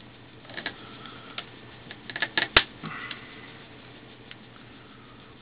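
Plastic cover being pressed and snapped onto a Samsung Infuse 4G smartphone: a few light clicks, then a quick cluster of sharper snaps about two and a half seconds in, followed by a brief scrape.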